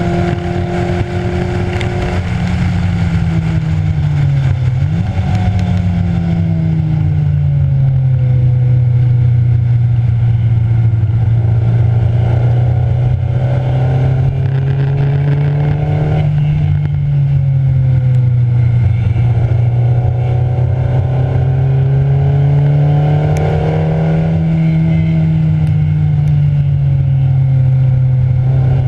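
Race car engine heard from inside the cabin, running hard on track. Its pitch rises and falls slowly as the car accelerates and brakes, with a sudden dip and jump in revs about five seconds in.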